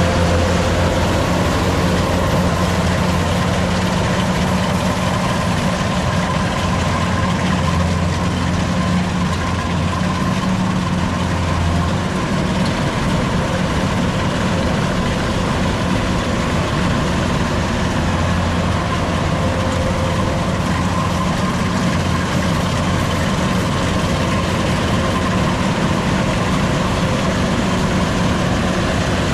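Kubota DC-105X combine harvester running steadily while harvesting: a constant diesel engine hum mixed with the even whir of its cutting and threshing machinery.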